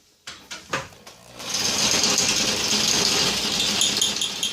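Electric drill boring a hole in metal with a freshly sharpened bit, a steady loud grinding whine starting about a second and a half in after a few knocks.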